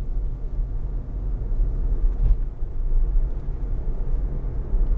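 Road and tyre rumble inside the cabin of a Tesla Model Y driving along at speed, with no engine note. A faint steady buzz runs underneath: the battery preconditioning on the way to a Supercharger.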